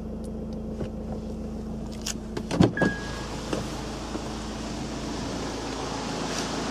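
Honda CR-V's 2.2-litre diesel engine idling steadily, heard from inside the cabin. About two and a half seconds in there is a short loud knock and a brief beep.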